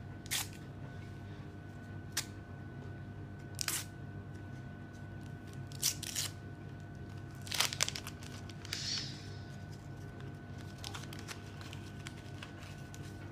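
Sticker packet wrapper being torn open and crinkled by hand: a handful of short, sharp crackles spaced a second or two apart, over a faint steady hum.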